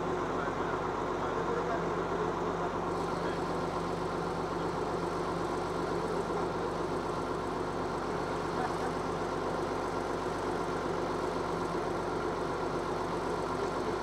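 Crawler bulldozer's diesel engine idling steadily at an even pitch.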